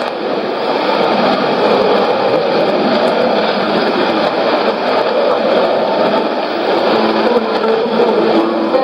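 Shortwave AM reception on a Sony ICF-2001D receiver of a weak, noisy broadcast signal: a steady rush of static and noise with the programme buried beneath it, faint music tones coming up near the end.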